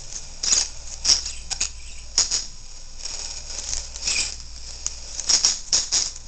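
Sun conure scuffling on a laptop as it attacks the screen's edge with its beak: irregular short scratchy bursts of wing flaps, beak and claws against plastic and keys.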